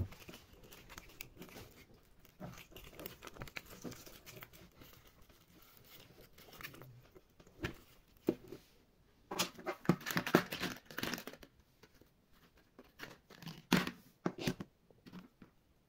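Plastic mesh net bag and its label being pulled and torn off a plastic toy basket, with crinkling and rustling; the loudest rips come about ten seconds in. Near the end, a short clatter of plastic toys tipped out of the basket onto a table.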